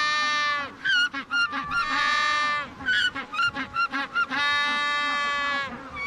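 Male Magellanic penguin's loud ecstatic display call: three long drawn-out braying notes alternating with runs of short, quick gasping notes. The call claims the nest and the female.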